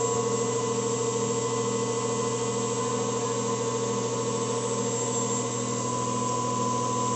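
Common-rail injector test bench running steadily, its motor-driven high-pressure pump humming with a few held tones, during the static leak test of a Bosch common-rail injector.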